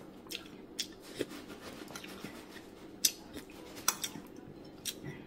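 A metal spoon clinking against a ceramic soup bowl: a handful of scattered sharp clinks, the loudest about three and four seconds in, over a faint steady hum.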